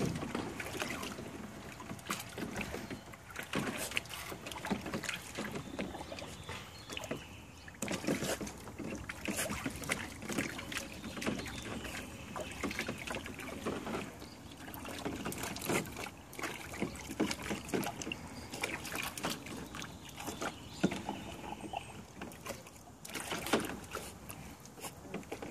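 Water splashing and sloshing irregularly in a small pool as a dog chases a swimming toy fish.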